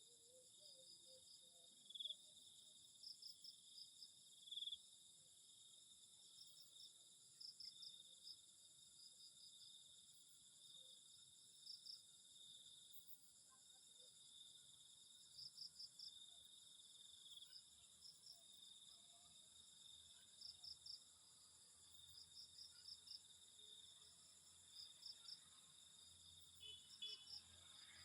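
Faint chorus of crickets and other insects: a steady high-pitched trill, with short chirps coming in quick groups of three or four every few seconds.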